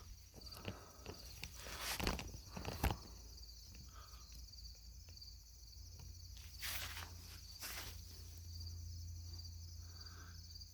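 Crickets chirping in a faint, steady high-pitched trill throughout, with a few footsteps rustling over it.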